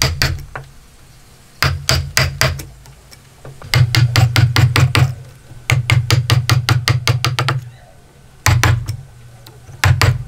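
Hammer striking a wood chisel in quick runs of blows, several a second with short pauses between runs, as the chisel chops the waste wood out of a joint in a timber beam.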